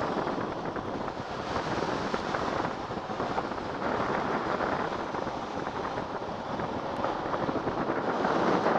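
Wind rushing over the microphone with the steady roll of urethane longboard wheels on asphalt at downhill speed, growing a little louder near the end.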